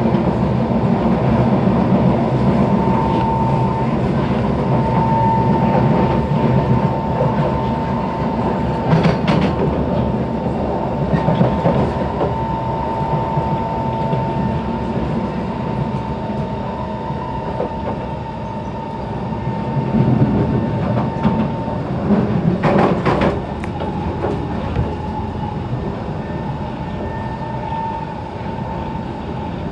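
SMRT C151 (Kawasaki Heavy Industries) metro train heard from inside the car while running at speed: steady rumble of the wheels on the rails under a steady traction-motor whine, a motor sound said to resemble the C651 trains. Two short clatters of the wheels over the track come about 9 and 23 seconds in, and the whine drops a little in pitch after the second.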